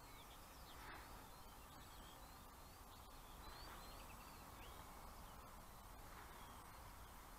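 Faint birdsong: many quick chirps and short rising and falling notes over a steady low hiss.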